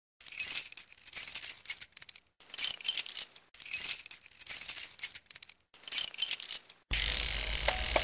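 Intro title music and sound effects: four bursts of bright, high, jingling shimmer, then about seven seconds in a steady, fuller sound with a deep low end starts abruptly.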